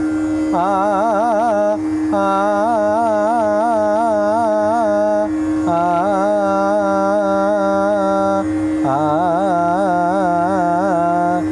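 A male voice singing tappa dana on an open vowel: quick, even oscillations between neighbouring notes, about four a second, in four phrases with short breaths between them. A steady drone note sounds under the voice throughout.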